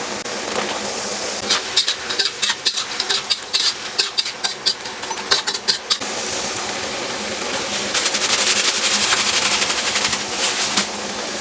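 Kitchen utensils knocking and clattering while food is cooked: a string of sharp irregular knocks, then a spell of dense rapid tapping for a couple of seconds near the end.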